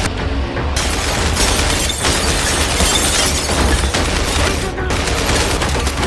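Action-film gunfire: a dense, continuous barrage of gunshots and bullet impacts inside a tram carriage, thickening just under a second in, over a steady low rumble.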